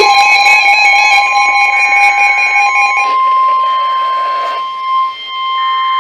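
NOAA Weather Radio's steady 1050 Hz warning alarm tone, the signal that a warning message is about to be broadcast. For the first three seconds a second, multi-pitched alarm tone sounds over it, then stops.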